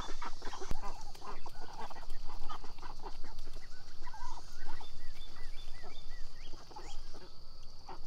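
A flock of domestic ducks chattering with many short, soft chirping calls, thickest in the middle of the stretch, over small wet clicks from their bills dabbling in mud and shallow water.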